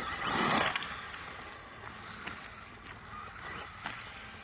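Radio-control truck running on loose gravel: a brief loud rush of tyres in gravel in the first second, then fainter gravel noise.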